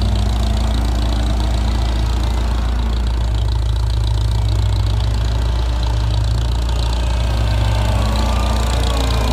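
A steady, loud engine idle close by, with a John Deere compact track loader working as it carries a round bale; a faint engine note rises and falls near the end.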